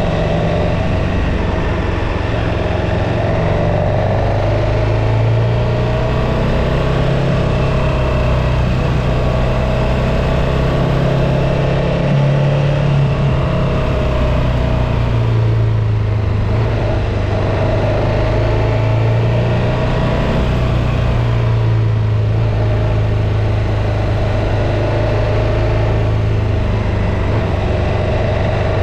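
Motorcycle engine running steadily while riding, its engine speed rising and falling slightly, over a steady rush of wind and road noise.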